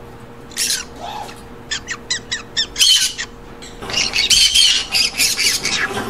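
Green-cheeked conures calling: a quick run of short chirps about two seconds in, a single loud squawk near three seconds, then a long stretch of loud squawks in the last two seconds.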